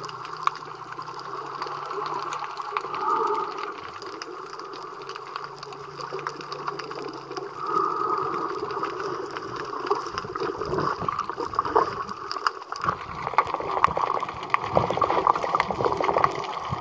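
Muffled underwater water noise around a submerged camera: a steady gurgling wash, with a faint low hum in the first few seconds. From about ten seconds in it turns choppier, with irregular sloshing and splashes.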